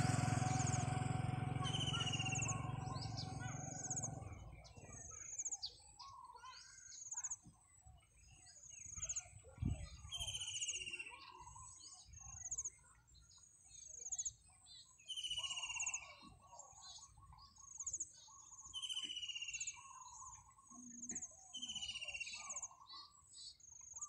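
Several birds calling in the open: many short high chirps, a clear falling whistle repeated every few seconds, and lower call notes. A low rumble fades away over the first four seconds, and there is a single thump about ten seconds in.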